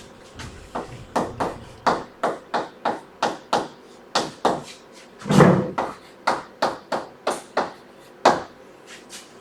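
Sharp taps and short strokes of writing on a board, two or three a second, with a longer, louder stroke about five and a half seconds in.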